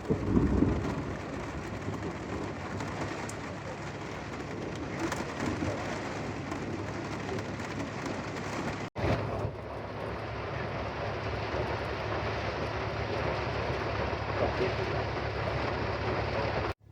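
A vehicle on the road: steady engine and road noise with a constant low hum. It drops out for an instant about nine seconds in, then carries on.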